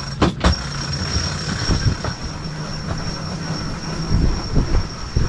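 A sailboat's cabin-top winch hauling out the mainsail: a steady high mechanical whine, with two clicks just after it starts, over a low steady engine hum.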